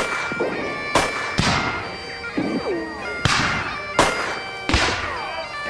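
Bagpipes playing, their steady drones held under the tune, while about six sharp bangs go off at uneven intervals, each trailing off in a short echo.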